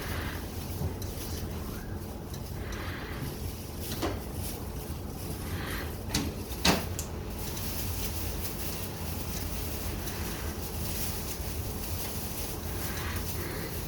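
A few sharp clicks and knocks, as of objects being handled, the loudest a little past halfway, over a steady low hum.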